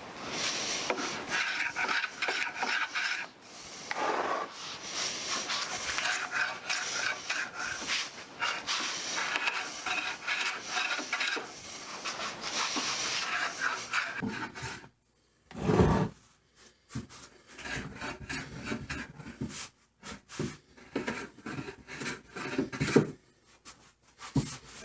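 A Stanley No. 3 Bailey smoothing plane being pushed in repeated strokes over a wood block, each pass giving a rasping shave of wood. About 15 seconds in there is one loud knock, followed by lighter, scattered scraping and handling sounds.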